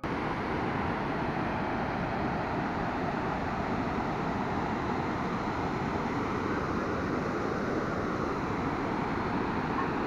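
Steady rushing of a waterfall: water cascading into a pool, a constant even noise with no breaks.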